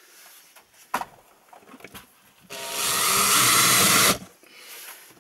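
Cordless drill-driver driving a screw through a wooden batten into the wall panel. It runs steadily for about a second and a half and then stops abruptly. A light knock comes about a second in as the drill is handled.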